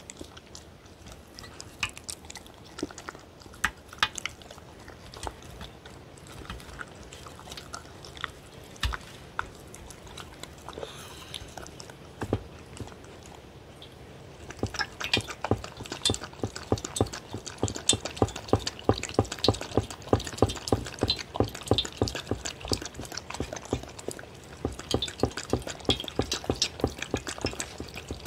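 Dog licking and chewing food from a stainless steel divided tray, with scattered clicks and licks. From about halfway it laps steadily and quickly, about four laps a second, at pet milk in one of the compartments.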